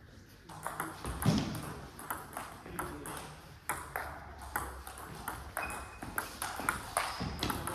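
Table tennis rally: the ball clicking sharply off the players' bats and bouncing on the table, a quick back-and-forth run of clicks starting about half a second in.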